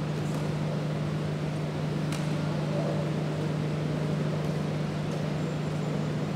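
Steady low hum over a constant hiss of background noise, with a faint click about two seconds in.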